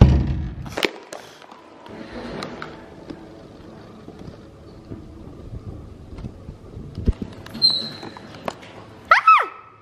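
A door thuds shut with a latch click, followed by soft footsteps and clothing rustle on a tiled floor. Near the end a short, high call falls steeply in pitch.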